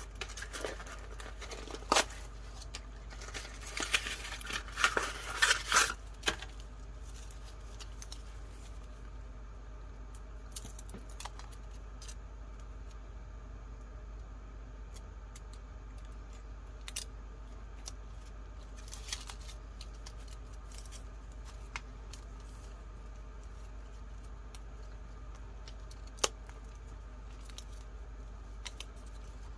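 Paper and stickers being handled on a craft table: busy rustling and clicking for about the first six seconds, then only occasional light clicks and taps over a low steady hum.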